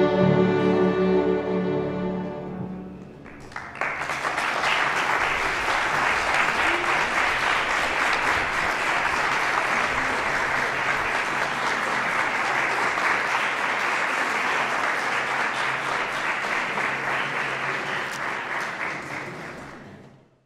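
A student string orchestra's final chord rings and dies away, then the audience applauds steadily for about sixteen seconds, the clapping fading out near the end.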